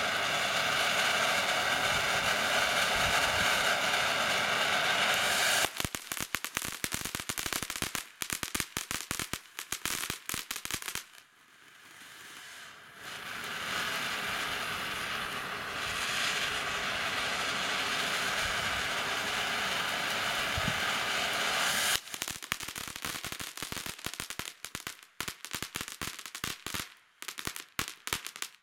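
TNT "Always" ground fountain firework spraying sparks with a steady loud hiss. About six seconds in it switches to dense crackling, fades briefly, then hisses again. From about two-thirds of the way through it crackles once more until it burns out near the end.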